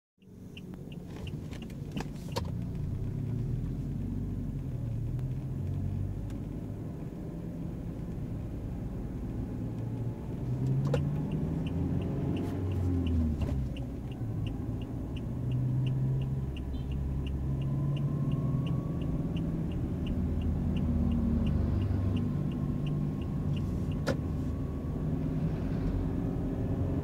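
Inside a moving car: a steady engine and road rumble whose low pitch shifts now and then. A regular light ticking, about three a second, comes in near the start and again for a long stretch in the middle, with a few short knocks.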